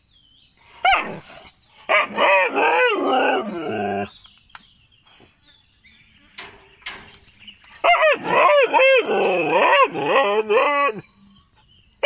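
A Sippiparai hunting dog barking and whining in high, wavering yelps, in bouts: briefly about a second in, again from about two seconds, and longest from about eight seconds. He is agitated and angry at being left tied up, demanding to be let out for a walk too.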